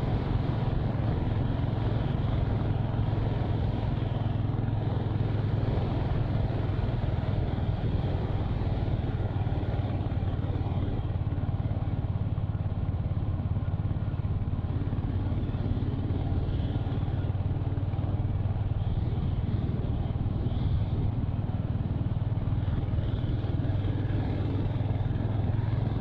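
Royal Enfield Hunter 350's single-cylinder engine running at a steady cruise, its hum holding an even pitch with no change in revs.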